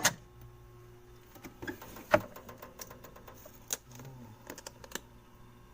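Food containers being handled and moved about inside a refrigerator: scattered clicks and knocks, the loudest about two seconds in.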